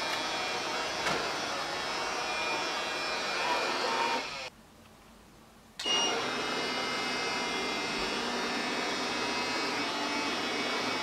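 CyberBay robotic vacuum cleaner running with a steady whirr of its suction motor and brushes. About four and a half seconds in, the sound cuts out for over a second, then comes back suddenly.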